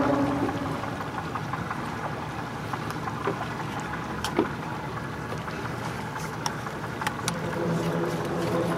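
Steady running noise of a boat on the water, from the engine, the water and the wind, with a few sharp clicks.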